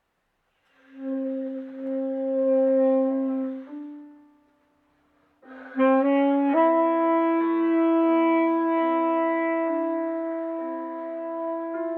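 Tenor saxophone playing slow, long held notes: one sustained phrase, a short pause, then a second phrase from about halfway through in which a second, lower held line sounds beneath it.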